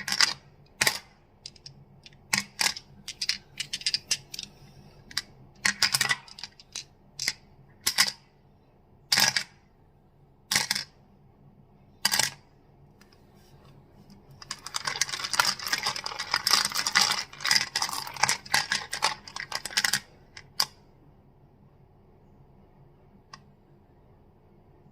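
Crystals tapped and clacked together: sharp separate clicks about once a second, then a dense run of rapid clicking lasting about six seconds past the middle.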